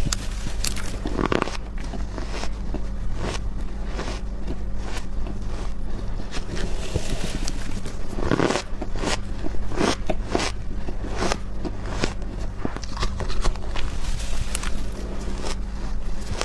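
Crunchy, powdery freezer frost being bitten and chewed close up: a run of irregular sharp crunches, some longer and louder, over a steady low hum.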